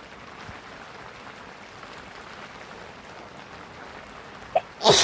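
Steady hiss of rain, then near the end a short 'ah' intake of breath and a loud, sharp human sneeze.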